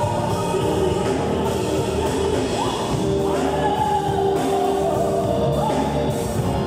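A man singing into a microphone over a live band of Korg keyboard and guitar. He holds long notes, some of them sliding up in pitch.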